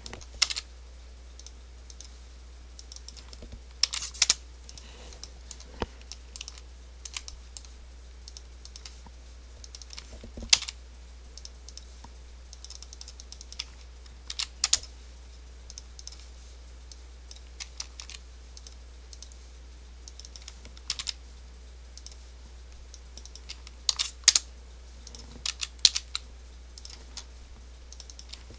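Computer keyboard keys and mouse buttons clicking irregularly, singly and in short quick runs, over a steady low hum.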